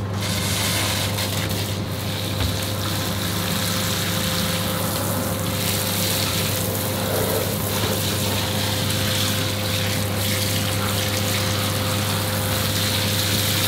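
Handheld shower head spraying water onto soapy plastic parts in a bathtub, a steady hiss of spray with a steady low hum under it.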